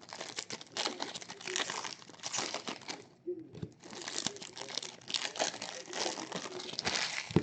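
Plastic and cardboard packaging of trading-card boxes crinkling and rustling as it is unwrapped and handled, in irregular bursts with a short pause midway.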